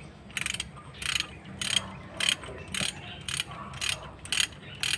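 Socket ratchet wrench clicking in short repeated runs, two or three a second, as bolts on an engine's cylinder head are turned.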